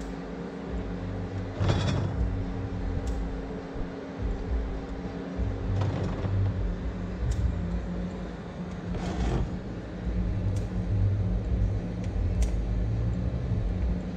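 Low, steady vehicle engine rumble with a hum, and a few short knocks or clicks.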